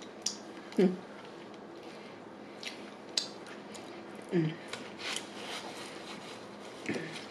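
Close-miked eating mouth sounds: scattered short smacking clicks as sauce is licked off the fingers, with two brief low hums of the voice.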